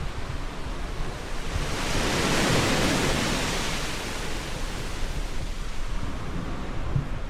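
Sea waves washing in, with one wave surging up about two seconds in and fading away over the next couple of seconds, over a low rumble of wind on the microphone.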